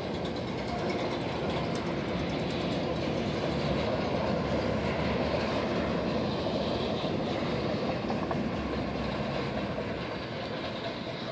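Canadian Pacific freight train's cars rolling past, a steady rumble and rattle of wheels on the rails, easing slightly near the end.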